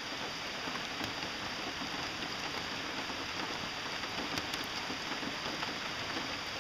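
Steady rain falling on the water of a creek, an even hiss broken by a few sharper drip ticks.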